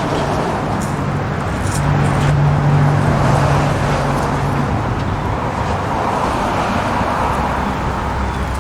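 Federal Signal RSH-10A 'Thunderbeam' electronic outdoor warning siren sounding in a test, heard from a distance. Its sound is smeared into a broad wash that grows stronger in the upper range near the end, over steady road-traffic and vehicle noise.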